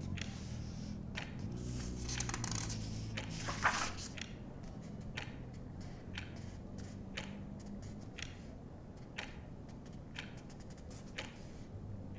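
A clock ticking about once a second, over a low rumble of traffic passing outside that fades away during the first half. A brief rustle ending in a sharp click comes two to four seconds in.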